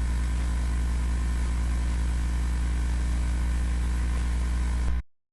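A steady low buzzing hum with static hiss over it, the droning background of a mock emergency broadcast, which cuts off abruptly about five seconds in.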